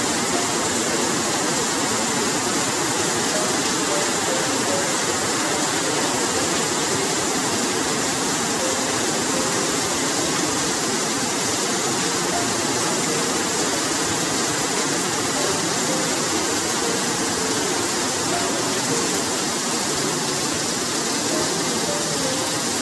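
Heavy rain pouring steadily onto a concrete street, a dense, even hiss of splashing water.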